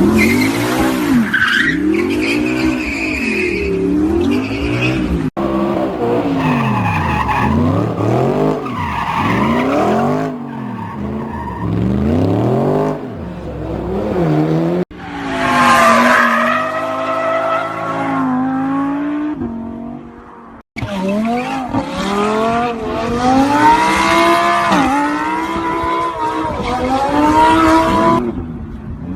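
Audi R8 engine revving hard, its pitch rising and falling again and again, with tyres squealing through drifts and burnouts. The sound breaks off at hard cuts three times as one clip gives way to the next.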